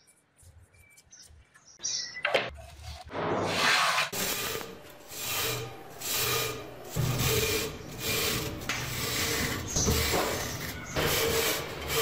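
Brass wire hand brush scrubbing flaking rust off a steel adjustable wrench, in repeated back-and-forth scraping strokes about once a second, starting about two seconds in.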